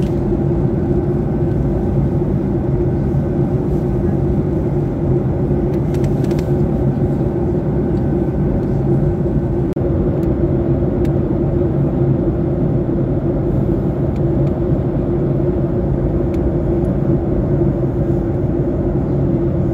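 Steady drone of a jet airliner heard inside the cabin in flight: an even rush of engine and air noise with a constant low hum and no change in level.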